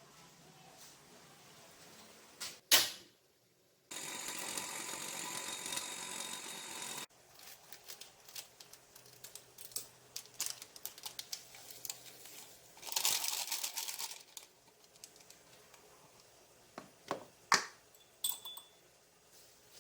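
Clicks and rustles from objects being handled, with one sharp loud click near the start and about three seconds of steady hiss that starts and stops abruptly a few seconds in, then a scatter of lighter clicks.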